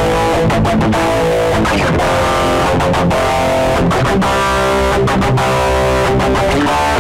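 Stratocaster-style electric guitar played through an amplifier, strumming chords and riffs with several brief stops between them, as a tone test of the guitar.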